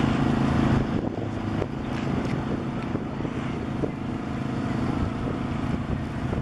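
Motor vehicle engines running on a street, a low steady engine hum strongest in the first second, then fainter mixed engine and traffic noise.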